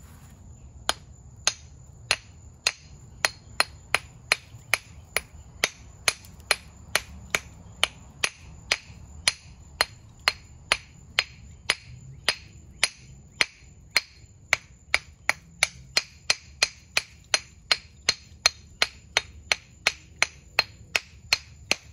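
Claw hammer tapping again and again on a hand-held fossilized clam to chip off part of the rock: sharp clicking knocks, about two a second, quickening a little toward the end.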